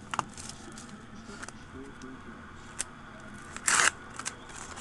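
A 2007 Upper Deck Black baseball card pack and its cardboard insert being handled and opened: faint light clicks and taps, with one short louder rustle-scrape about three and a half seconds in.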